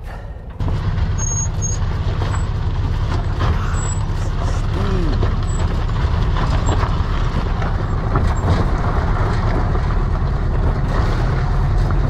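Air-cooled flat-four engine of a 1950s VW bus pulling steadily up a steep dirt trail, a low rumble that picks up about half a second in, with short knocks and rattles from the bus going over rough ground.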